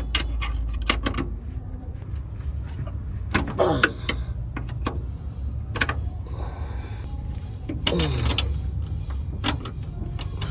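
Open-end wrench working the bolts of a drive shaft center bearing bracket, with sharp metal clicks. Three brief squeals fall in pitch, about four seconds apart, over a steady low hum.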